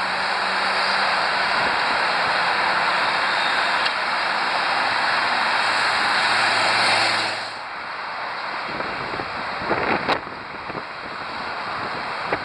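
Steady loud roar of road traffic on a busy multi-lane road. It drops off sharply about seven and a half seconds in, leaving lighter traffic noise with a couple of short knocks.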